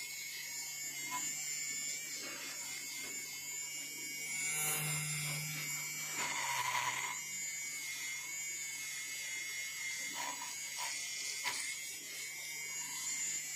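Handheld battery-powered milk frother running with a steady whir, its spinning wire coil whipping coffee into froth in a steel bowl.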